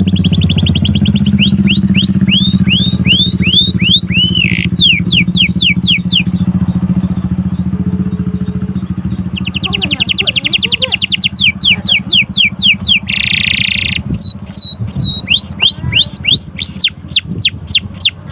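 Canary singing a long, varied song of fast trills and repeated down-slurred whistles, over a steady low engine-like hum that weakens about three-quarters of the way through.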